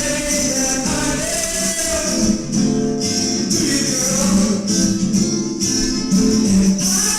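Acoustic blues song: a strummed acoustic guitar with jingling hand percussion and a sung vocal, at a steady level.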